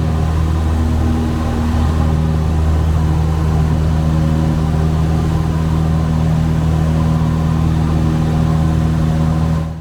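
Cessna 172's piston engine and propeller running steadily at an even pitch, heard from inside the cockpit; it fades out at the very end.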